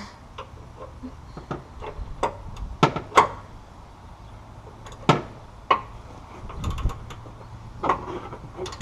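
Hand tools clinking and knocking against metal suspension parts during a rear shock swap: a string of irregular sharp clicks, the loudest pair about three seconds in.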